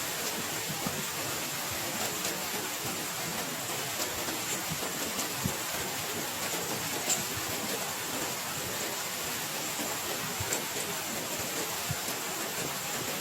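Heavy rain falling steadily, with a few louder single drops or taps standing out now and then.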